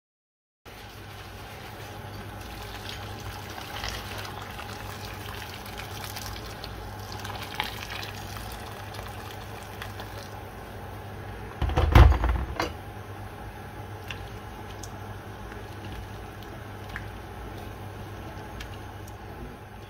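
Liquid bubbling steadily in a cooking pot, with a brief clatter about twelve seconds in.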